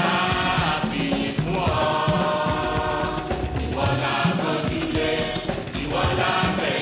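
Gospel music: a choir singing held phrases over a band with a steady drum beat.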